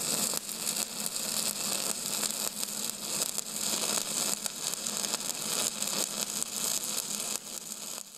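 A steady crackling hiss, made of a dense run of fine crackles and heaviest in the treble, dropping off near the end.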